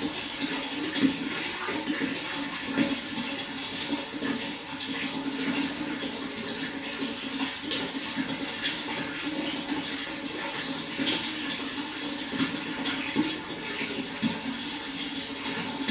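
Running water flowing steadily, with many small splashes through it.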